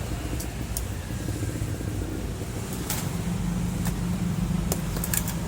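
Steady low engine rumble with a low hum that comes in about halfway, and several sharp clicks scattered through.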